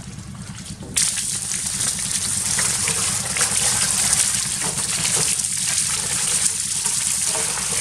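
Water gushing and splashing, a steady rushing hiss that gets suddenly louder about a second in.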